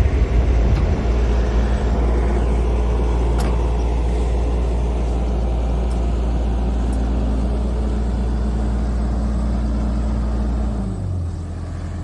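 CAT hydraulic excavator's diesel engine running steadily under working throttle while it holds and sets down a chained log, then dropping to a lower, quieter idle about eleven seconds in.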